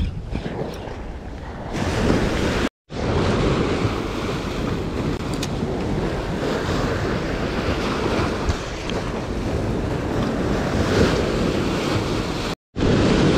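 Sea surf washing against the shore with steady wind rumbling on the microphone. The sound drops out completely twice for a split second.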